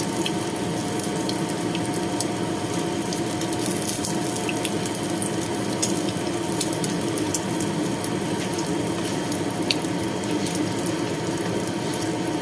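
Rice-paper shrimp cake frying in a little oil over medium heat after being flipped: a steady sizzle with scattered small crackles, over a faint steady hum.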